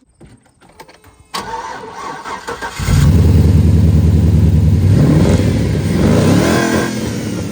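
LS V8 engine in a 1954 Chevy Bel Air cranked by the starter for over a second, then catching and running loudly, revving up briefly, and settling toward idle near the end. It is running with a misfire on one cylinder, whose fuel injector is not clicking.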